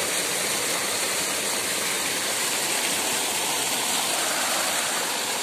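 Shallow rocky forest stream rushing over a small cascade: a steady hiss of running water.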